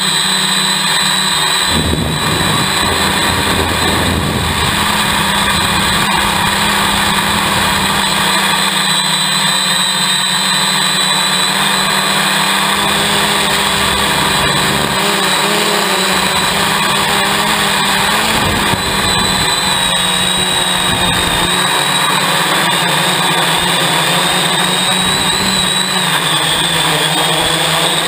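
Hexacopter's electric motors and propellers whining steadily in flight, heard from the camera mounted on the craft, the pitch wavering slightly as the throttle changes. Wind rumbles low on the microphone now and then.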